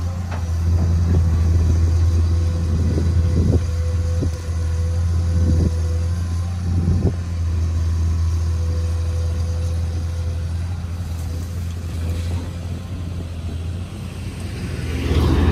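Komatsu PC210 hydraulic excavator's diesel engine running steadily, with several short knocks and scrapes as the bucket digs into the soil. Near the end comes a louder rush of dirt pouring from the bucket into a dump truck's steel bed.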